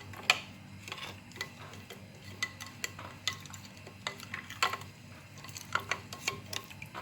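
A spoon stirring a liquid mixture in a bowl, clinking against the side at irregular intervals, to dissolve yeast and sugar in warm milk.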